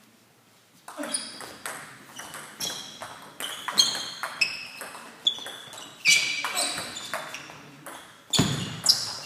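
Table tennis rally: the ball clicking off the bats and the table in quick succession, several hits a second, each with a short ping. It starts about a second in, after near silence, and a louder sound comes near the end.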